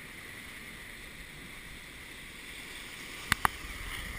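Ocean surf washing over and around a rocky ledge, a steady wash of foaming water. Two sharp clicks come close together a little after three seconds in.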